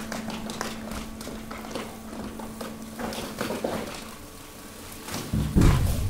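Hydraulic waste compactor working a load of mixed waste: a steady low hum with scattered crackling, clatter and knocks as bags, bottles and leaves shift, and a heavy low thud about five and a half seconds in.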